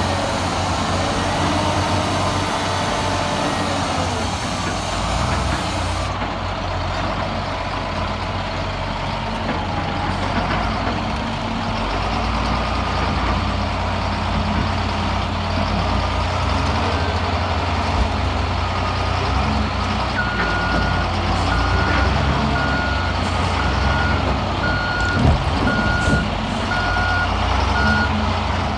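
Heavy diesel machinery running with a steady engine drone. Through the last third a reversing alarm beeps about once a second.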